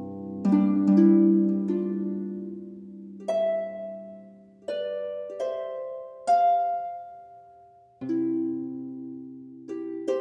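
Background music: slow plucked string notes and chords, each struck sharply and left to ring and fade.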